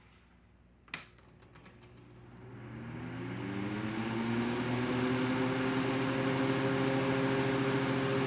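Small 2008 Wexford box fan switched on at high speed: a click of the switch about a second in, then the motor hums and the blades spin up, the rising rush of air levelling off into a steady blow after about five seconds.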